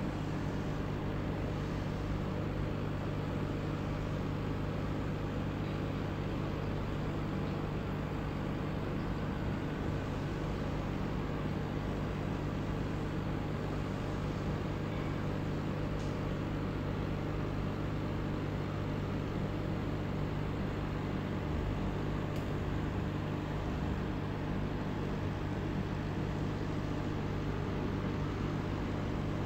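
Aquarium pump running, a steady low hum with an even hiss over it that does not change.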